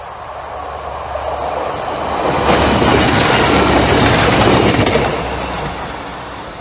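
Diesel multiple unit passing at speed close by. The rumble and rattle of its engine and wheels on the rails build up, are loudest from about two and a half to five seconds in as the cars go past, then fade as it runs away.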